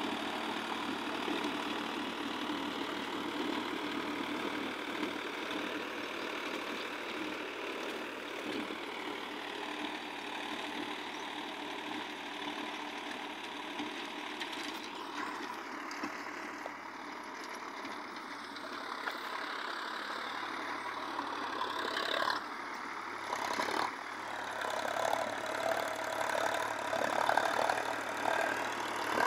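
Solis 5015 tractor's diesel engine running steadily under load as it pulls a rotavator through dry soil, growing louder over the last several seconds as the tractor comes closer.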